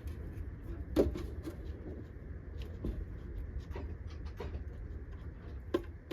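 Scattered light clicks and knocks from hands working a MIG welder's wire feed mechanism, the sharpest about a second in, over a low steady hum.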